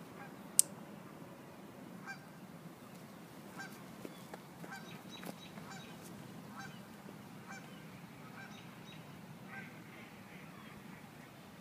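Geese honking: about ten faint, short honks at irregular intervals, with one sharp click about half a second in.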